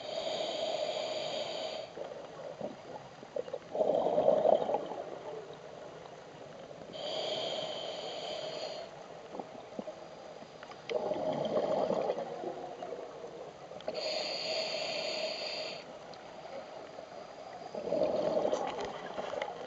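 Scuba diver breathing through a regulator underwater. Three inhalations, each a hiss of about two seconds, alternate with three louder bubbling exhalations, about one breath every seven seconds.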